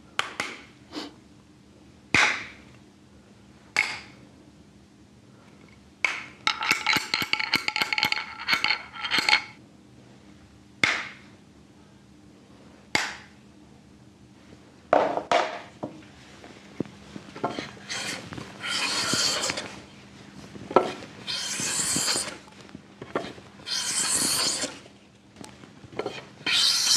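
Small hammer tapping a Japanese hand plane (kanna) to set its blade: single sharp knocks, then a quick run of taps with a metallic ring about a quarter of the way in. From about two-thirds in come four long strokes of the plane shaving along a timber beam, each a second or two long.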